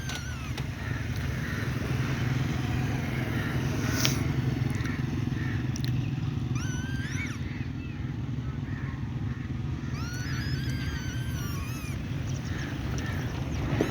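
Diesel-electric locomotive engine running under load with a steady low rumble as it hauls a goods train away, pulling a dead locomotive behind it. A few high wavering chirps sound over it near the middle and about ten seconds in, and there is a sharp click about four seconds in.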